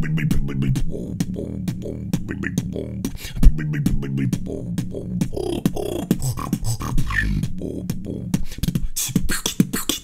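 Human beatboxing in a house-music style: fast mouth-made drum hits in a steady rhythm over a low sustained hum, with the loudest hit about three and a half seconds in.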